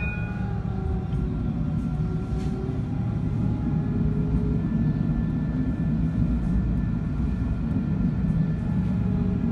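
Electric tram running: a steady low rumble of wheels on rails with a faint motor whine that drifts slightly in pitch.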